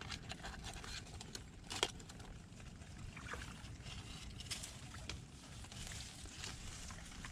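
Leaves rustling and shallow muddy water sloshing as a person wades through mangrove undergrowth and pushes the plants aside by hand, with scattered small clicks and one sharper snap about two seconds in.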